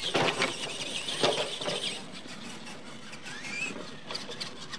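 Radio-controlled monster truck landing jumps on a dirt track, with two sharp thumps about a second apart, its electric drive whining between them and as it runs on.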